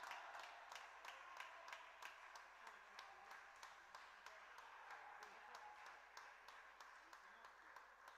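Faint, quick clicking of table tennis balls bouncing on tables and bats, about three or four clicks a second and unevenly spaced, over a faint murmur of voices.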